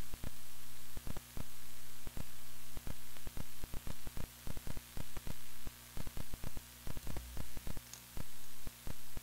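Steady static hiss with a low electrical hum from the open audio line, cutting out and back in dozens of times at irregular intervals, with a click at each break.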